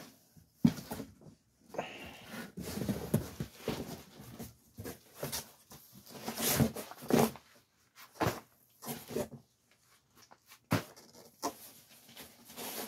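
A cardboard box being moved and nylon military packs handled: intermittent rustling and scuffing with a few sharp knocks.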